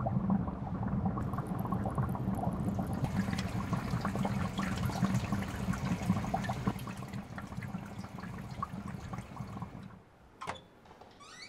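Water bubbling and gurgling in an aquarium tank, dense and steady, cutting off abruptly about ten seconds in. A sharp click follows, then a brief rising tone near the end.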